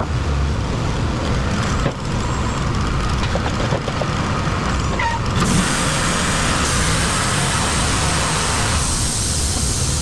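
Wood-Mizer LT35 sawmill running steadily, its gas engine driving the band blade through chestnut oak. The high-pitched hiss of the cut grows louder about halfway through.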